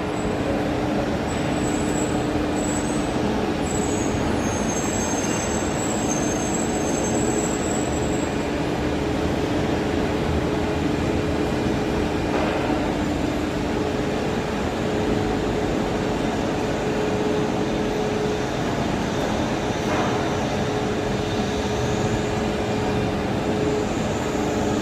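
Steady mechanical running noise, a constant hum with two low steady tones, keeping an even level throughout.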